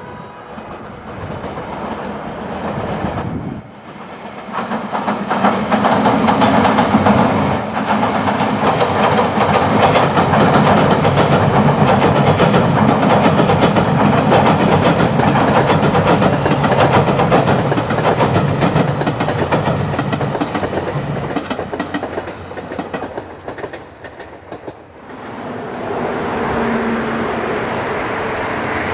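A train crossing a steel railway bridge: a loud rumble with a fast clatter of wheels over the rails that builds about four seconds in and dies away after about twenty seconds. Near the end a softer steady noise takes over.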